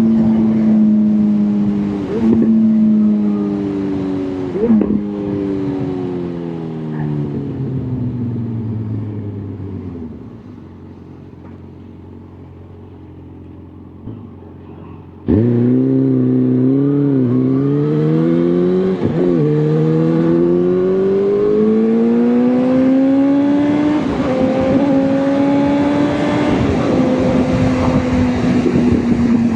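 Motorcycle engine slowing down, with two downshifts blipping the revs, and dropping to a quiet idle for a few seconds. Then it pulls away hard, revs climbing through two upshifts, and settles into steady cruising with wind and road noise.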